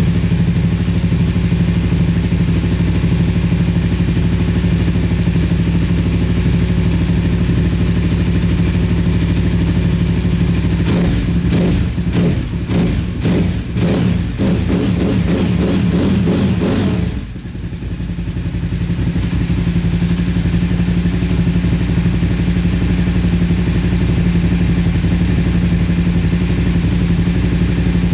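Motorcycle engine running steadily, just started on a freshly charged battery. About halfway through it runs unevenly for several seconds and dips sharply, then settles back into its steady running.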